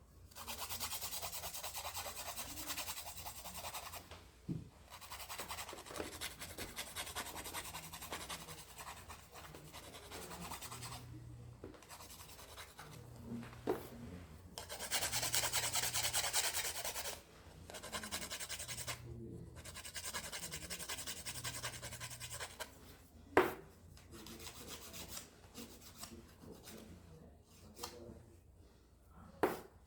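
A fingernail being filed: rasping strokes on the nail in stretches of a few seconds with short pauses, the loudest stretch around the middle, and a sharp click about three quarters of the way through.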